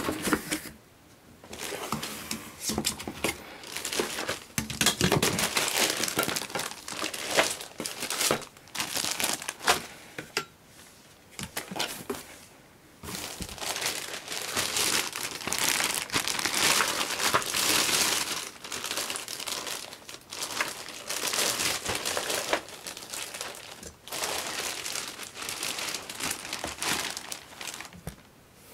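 Cardboard box being opened and handled, then a clear plastic bag crinkling as it is lifted and rummaged, in repeated bursts with short pauses.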